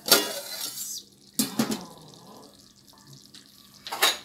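An aluminium pot of simmering chicken curry being uncovered, its lid handled with a cloth: three bursts of hissing, watery noise, the first and longest at the start, another about a second and a half in, and a short one near the end.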